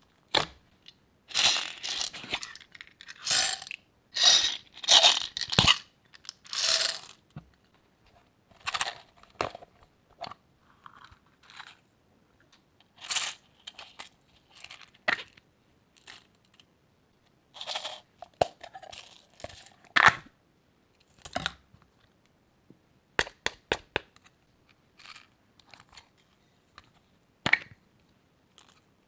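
Crunchy slime being squished and mixed by hand: irregular bursts of crunching and crackling, busy for the first several seconds, then sparser with a few sharp clicks.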